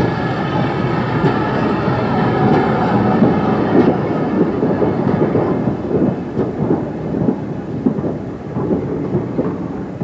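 GWR Manor-class 4-6-0 steam locomotive running past at low speed, followed by the steady rumble and irregular clatter of its coaches' wheels over the track.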